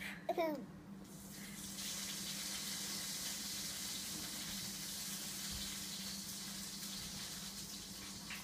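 A toddler's brief giggle at the start, then from about a second in the steady hiss of water running from a tap.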